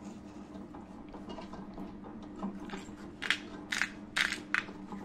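White pepper being ground into the pot by hand: a run of about six short crunching grinds in the second half, over the steady low hum of a Kenwood kCook Multi cooking robot.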